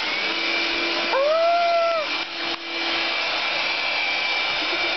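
Cordless stick vacuum cleaner running with a steady high whine, then cut off at the very end. About a second in, a drawn-out vocal note rises, holds and falls over about a second.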